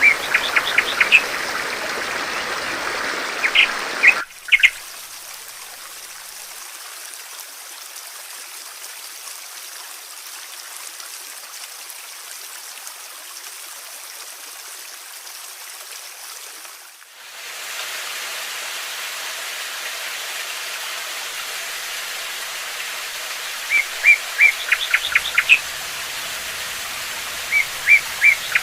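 A small bird chirping in quick runs of short, high notes over a steady rush of running water. The sound cuts abruptly to a quieter water sound without birds about four seconds in, brightens again after the middle, and the chirp runs return near the end.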